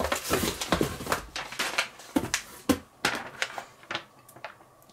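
Handling noises: rustling packaging and a run of knocks and clicks as metal food tins are lifted out of a parcel and handled, dying away near the end.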